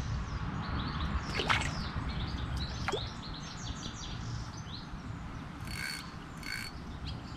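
Small birds chirping and singing, with two short harsh calls about six seconds in, over a steady low rumble.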